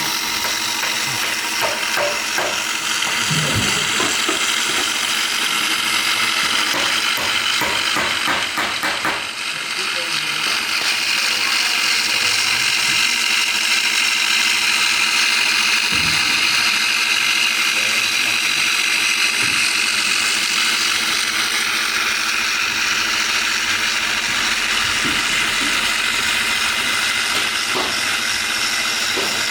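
Angle grinder's electric motor running steadily with a high, even whine, with scattered clicks and rattles in the first ten seconds or so.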